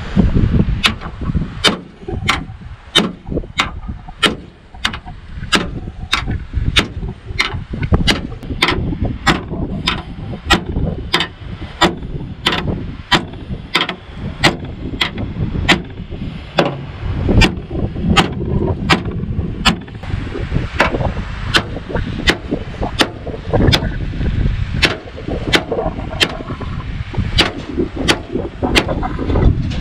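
A Cold Steel SR1 tanto-point folding knife stabbed again and again through a car's sheet-metal hood: a steady run of sharp metallic impacts, roughly one every half second.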